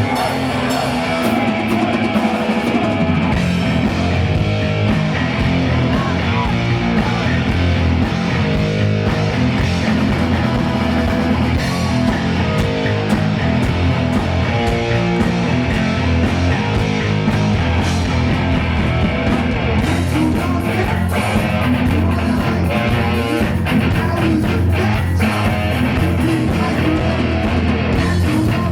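Rock band playing live and loud, with guitars and a drum kit.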